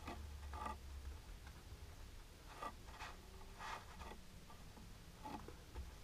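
Long natural fingernails tapping and scratching on a black leather hand cushion: a handful of short, faint scratchy strokes spaced irregularly, over a low steady hum.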